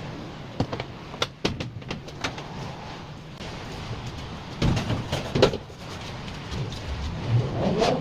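Clicks and knocks of dryer parts being handled during the repair, with a louder burst of clattering and rubbing about five seconds in.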